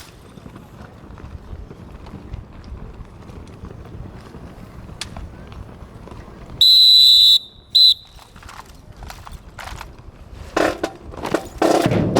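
A whistle blown in two blasts, one long and then one short, as a signal to the drill band. Near the end, sharp percussive strokes begin as the band's percussion starts up.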